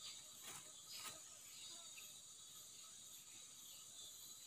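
Near silence: a faint steady high hiss, with two faint clicks about half a second and a second in.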